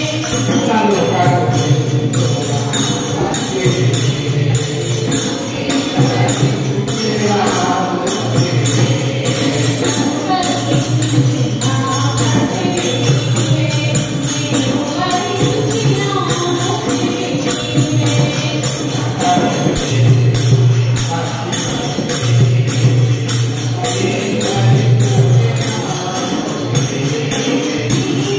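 A group of women singing a Krishna bhajan, one voice leading on a microphone, with hand clapping and jingling percussion keeping a steady beat.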